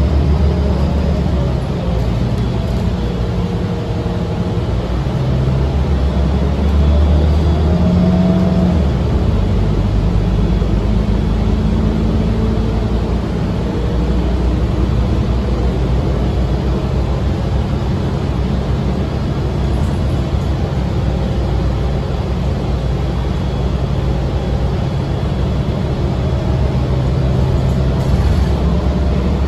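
Inside a moving city transit bus: the engine and drivetrain run steadily with tyre and road rumble. The engine note rises and falls a few times as the bus changes speed.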